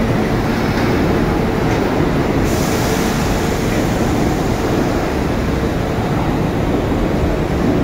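Kintetsu 80000 series "Hinotori" limited express pulling out of an underground station platform. The wheels and running gear rumble steadily, echoing off the platform walls as the last car goes by, and a high hiss joins about two and a half seconds in.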